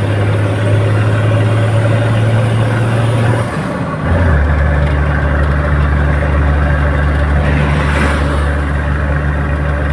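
Toyota Land Cruiser 80 series engine pulling steadily as the vehicle starts up a hill. About four seconds in there is a gear change: the note dips in loudness and settles lower in pitch, then pulls steadily again.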